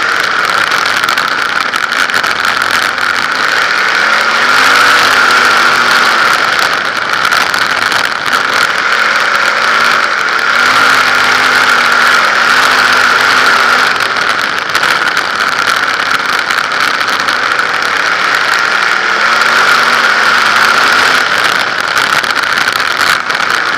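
A 360 sprint car's V8 engine running at low revs, its pitch rising and falling gently with light throttle, under a loud steady hiss heard from the car's onboard camera.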